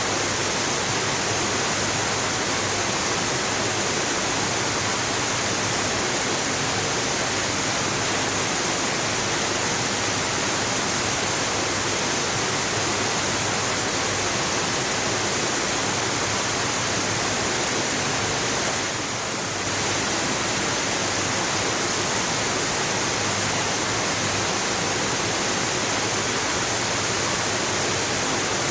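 Waterfall: a steady rush of falling water, even and unbroken, with a brief slight dip in level about two-thirds of the way through.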